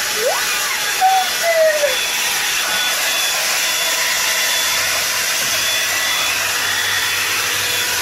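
Revlon One-Step hot-air brush dryer running steadily: a constant rush of blown air with a faint, even motor whine. About a second in, a brief voice sound rises and falls over it.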